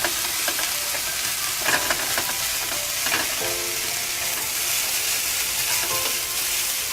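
Shredded chicken, cabbage and red pepper sizzling in a frying pan, a steady hiss, while being stirred, with a few brief scrapes.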